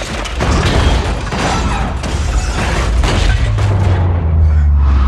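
Film action sound effects: a string of heavy crashes and metal impacts with booms as a wrecking ball smashes into cars, then a deep low rumble from about three and a half seconds in, with music underneath.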